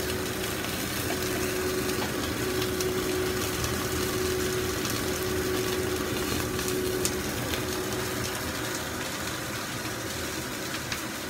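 Boneless chicken thigh steak sizzling steadily in a frying pan, its skin crisping in the rendered fat, with a steady hum underneath that fades out about two thirds of the way through.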